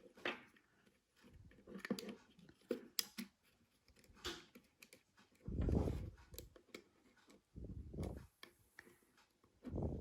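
Light clicks and taps of tweezers working small parts of an opened Ring Doorbell Pro back into place, with a few duller thumps of handling.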